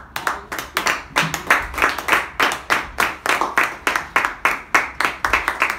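Applause by hand clapping: a steady run of sharp claps, about five a second, ending the talk.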